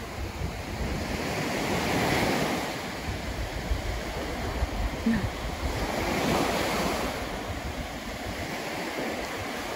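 Surf breaking and washing up a sandy beach, swelling about two seconds in and again about six seconds in, with wind buffeting the microphone.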